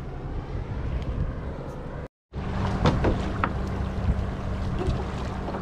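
A fishing boat's engine running steadily, with wind and water noise over it. The sound cuts out for a moment about two seconds in, then the engine hum carries on with a few sharp clicks.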